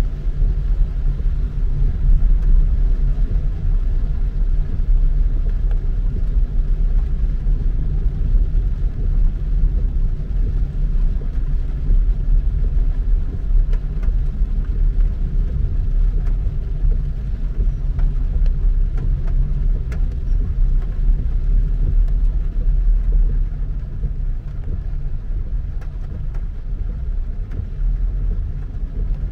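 A car driving along at a steady pace: a continuous low rumble of engine and road noise, with no clear rise or fall in engine speed.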